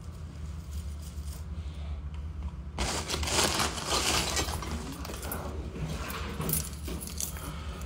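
A plastic mailing bag crinkling as it is rummaged through, starting about three seconds in, with a metal chain necklace clinking as it is pulled out.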